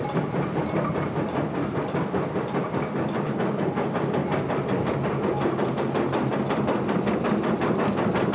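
Wooden works of a water-wheel-driven stone grist mill running, the shaking sieve clattering in a rapid, steady knocking rhythm as the meal is shaken out.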